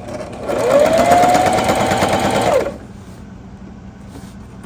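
Electric sewing machine stitching for about two seconds. Its motor whine rises quickly, holds steady, then stops. The needle is driving through a thick, stuffed pillow seam against a lot of resistance.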